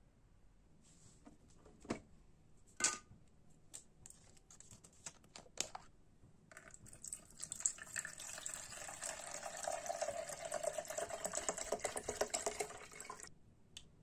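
A few sharp clicks and knocks, then water poured from a plastic bottle into the plastic water tank of a Microhoo mini air cooler: a splashing, gurgling pour that starts about halfway through, runs for about seven seconds and stops abruptly near the end.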